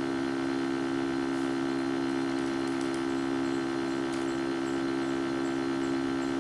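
Stepper motor of a DIY Arduino/grbl-driven camera slider energised and stepping at a very slow time-lapse speed, giving a steady electrical hum of a few constant tones.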